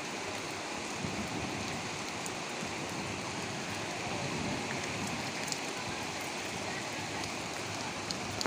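Steady rain falling, an even hiss with a few sharp drop ticks.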